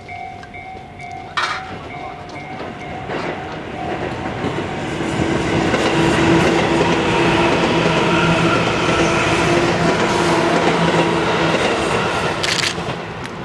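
A Tobu Railway local electric train passes close by on the adjacent track, wheels clattering over the rails and its motors humming steadily. It grows loud a few seconds in, stays loud, and fades near the end. Over the first few seconds a rhythmic electronic ringing repeats, then stops.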